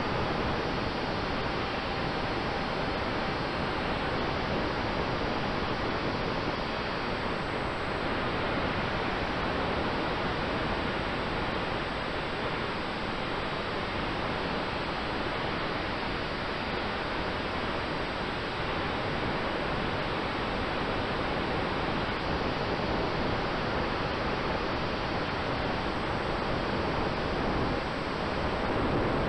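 Steady rush of airflow over the onboard camera microphone of a large-scale model aircraft in flight, with a faint steady tone running underneath.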